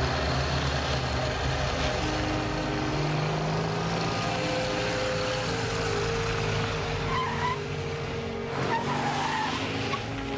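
Motorcycle with a sidecar riding along a dirt road, its engine and tyres making a steady noise.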